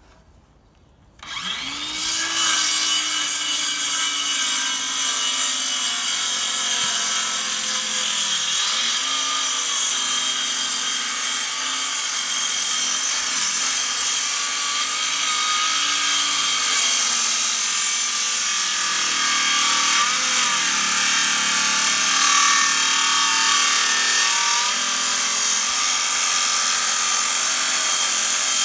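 Ryobi circular saw starting up about a second in, then running steadily as it rips down the edge of a wooden gate.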